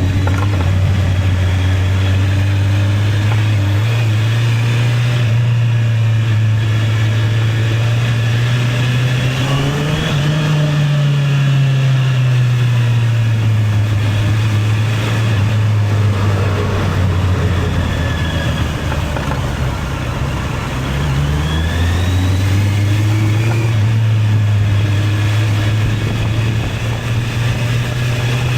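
Honda CB650R's inline-four engine pulling the bike through traffic, heard on the rider's camera. Its pitch rises to a peak about ten seconds in, falls slowly to a low ebb about twenty seconds in, then climbs again and holds.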